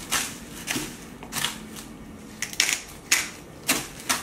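Black pepper grinder being twisted over a tub of panko crumbs, giving short grinding bursts roughly every half second.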